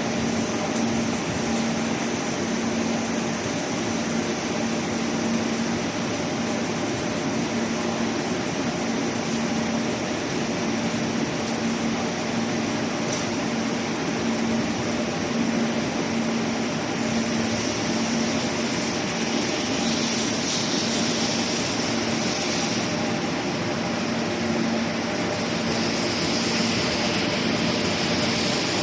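Steady machine noise: a constant low hum with an even, fan-like hiss over it, growing a little brighter in its upper range in the latter half.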